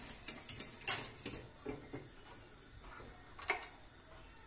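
A few light, separate clicks and knocks of objects being handled, the loudest about a second in and about three and a half seconds in.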